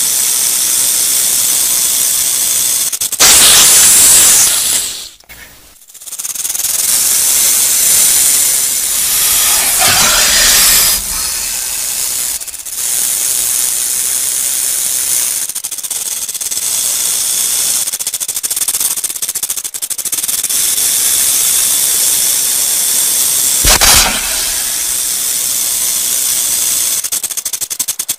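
Rattlesnake buzzing its tail rattle: a loud, steady, dry high-pitched buzz that swells about four seconds in, drops out briefly near six seconds, and has a few short breaks.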